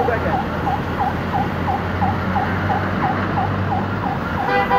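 Electronic siren yelping, a quick falling-and-rising sweep repeating about three times a second, over a steady low rumble. A brief, stronger pitched tone sounds near the end.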